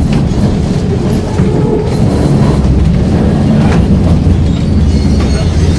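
Sintra tramway's century-old open tram car running on its rails: a steady, loud low rumble with a few faint clicks over it.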